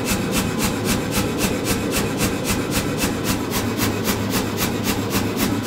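Say-Mak power hammer running, its die striking a hot 4140 steel bar in rapid, even blows about four or five a second, over a steady motor hum.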